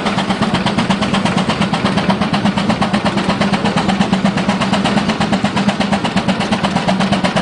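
65 hp Case steam traction engine working hard under load on a pull sled, its exhaust beating up the stack in rapid, even chuffs several times a second, over a steady low hum.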